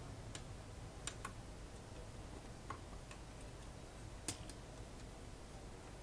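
Light, irregular clicks and ticks of parts being fitted by hand into the carriage mechanism of an IBM Wheelwriter electronic typewriter: about seven clicks, the sharpest about four seconds in.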